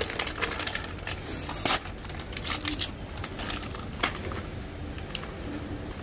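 Plastic snack packets crinkling and crisps crunching as two people eat, a string of irregular crackles and clicks with the loudest about a second and a half in. A low steady rumble runs underneath.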